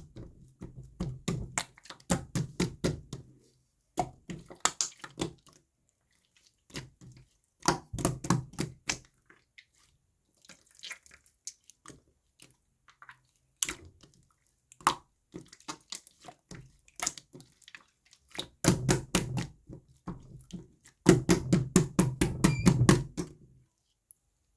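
Slime being squished and pressed by hand, making bursts of rapid sticky clicks and pops with short pauses between, the longest bursts near the end.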